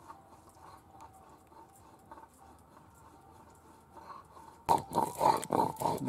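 Stone roller grinding spice paste on a flat stone slab (shil-nora), rubbed back and forth in quick gritty strokes about four a second. The strokes are faint at first and become loud and close about three-quarters of the way through.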